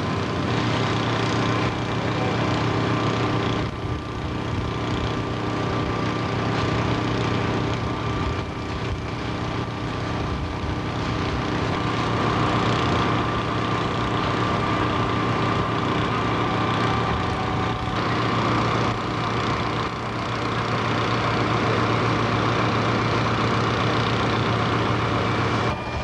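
Fire truck engine running steadily at a constant speed, a loud, even drone.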